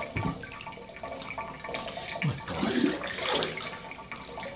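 Water splashing and pouring in a stainless-steel sink as a dog is scrubbed and doused from a jug, with a short low voice-like sound a little past halfway.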